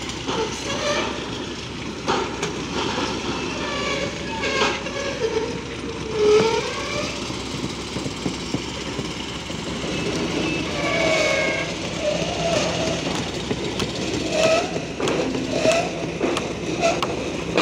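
Construction-site machinery: the steady running of the diesel engines on pile-driving rigs, with irregular knocks and clanks now and then.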